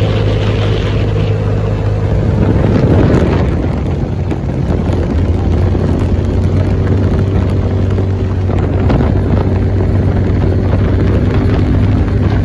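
Engine of an open off-road vehicle running steadily at road speed, with wind noise from the open cab. The engine note wavers briefly about three seconds in, then settles again.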